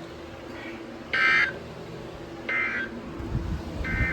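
EAS/SAME end-of-message signal from a NOAA Weather Radio: three short bursts of warbling digital data tone, about a second apart, marking the end of the broadcast alert. A faint steady hum from the radio lies underneath.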